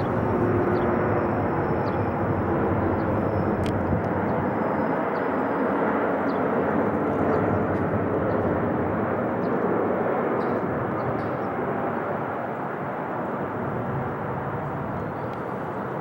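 Boeing 777 twin-engine jet flying past on approach, a steady rushing engine noise with a faint high whine in the first few seconds, slowly fading over the last several seconds.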